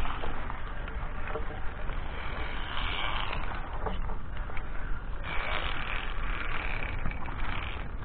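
Wind buffeting an action camera's microphone: a steady low rumble with louder rushing gusts about three seconds in and again for a couple of seconds in the second half, and a few light knocks.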